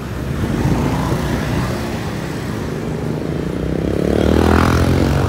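Small motorcycles riding past close by, their engines running. The sound builds to its loudest as one passes near the end, its engine note shifting in pitch as it goes by.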